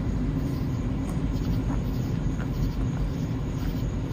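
Steady low rumble of a moving car's road and engine noise, heard from inside the cabin.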